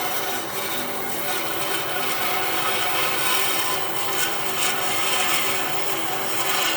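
A power tool working wood, running steadily throughout.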